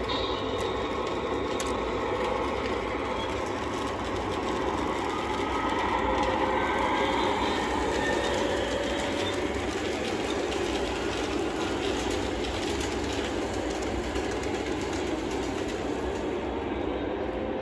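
Several Lionel O-gauge model trains running at once on three-rail track, a steady rumble and whir of wheels and motors that swells a little as a locomotive passes close by, about six to nine seconds in.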